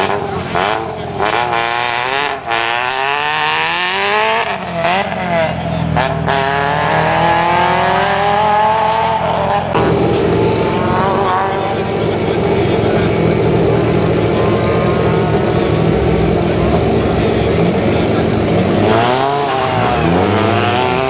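Rally car engines: a car accelerates hard away with several rising sweeps in pitch as it climbs through the gears, then engines idle steadily at the start line, and another car revs up near the end.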